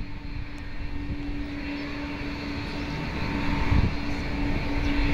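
Twin turbofan engines of a Boeing 777-200 running at low taxi power as the airliner rolls along the runway before takeoff. A steady hum carries a high whine that slowly grows louder over the last few seconds.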